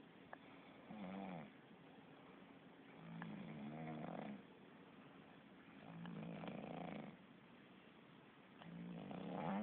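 Slow, regular snoring: four snores about three seconds apart, each lasting about a second.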